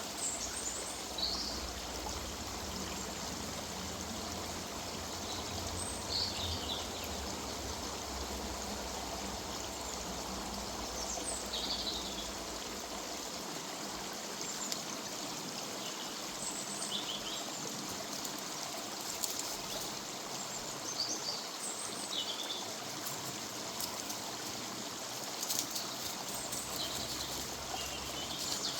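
River water running steadily, with a bird giving short high chirps every few seconds over it.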